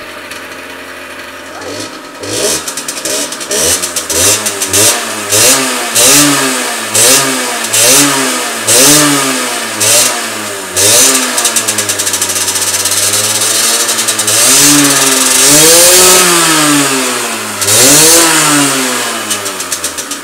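Motorcycle engine idling, then revved in a quick series of short throttle blips, about one a second, followed by a few longer revs that rise and fall, easing back toward idle near the end.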